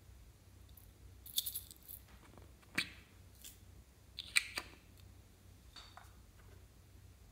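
A few sharp, light plastic clicks and taps from a small clear plastic cup of sequins being handled and tipped out over a slime dish, with quiet handling rustle between them.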